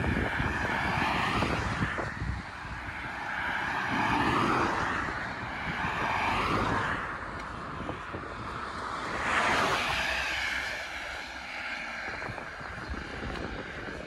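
Cars passing on a two-lane road, their tyre and engine noise swelling and fading several times.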